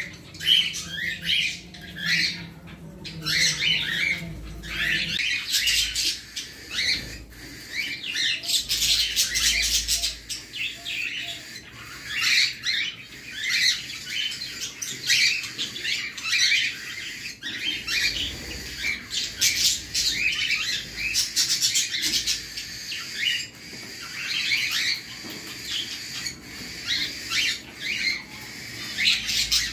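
Cockatiels in an aviary chirping and squawking: a steady stream of short, shrill calls that overlap one another, with a faint low hum in the first few seconds.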